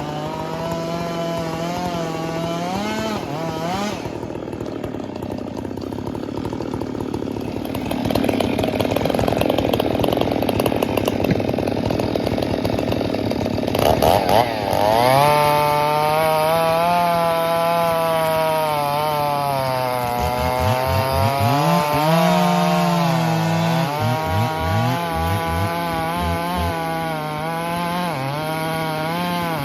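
Gas chainsaw cutting firewood, its engine pitch sagging under load and picking back up several times as the chain works through the wood.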